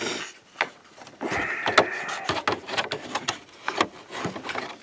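Plastic wiring connector being worked onto a replacement headlight switch: a string of small plastic clicks and knocks, with a stretch of scraping about a second in.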